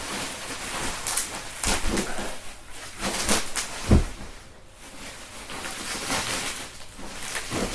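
Rustling and clattering of gaming-chair parts and their packaging being handled, with one sharp thump about four seconds in.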